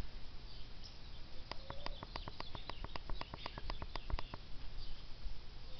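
Outdoor birds chirping, with a fast run of short, sharp clicking notes, about eight or nine a second, lasting about three seconds in the middle.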